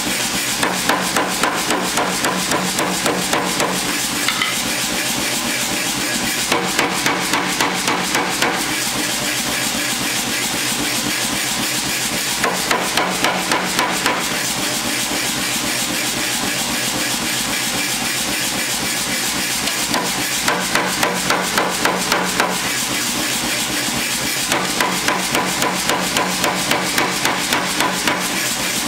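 Power hammer striking a red-hot mild-steel trowel blade on a die block, in five bursts of quick blows a few seconds apart, over steady machine noise.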